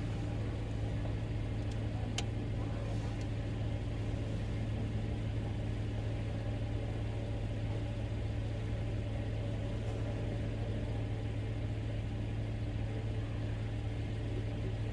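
A car engine idling steadily: a constant low hum that does not change, with one brief click about two seconds in.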